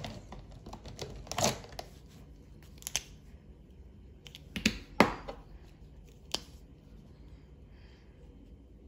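Twin-tipped art marker being uncapped and handled: a few sharp clicks and taps, spaced a second or two apart, then quiet room tone with faint marker strokes on paper near the end.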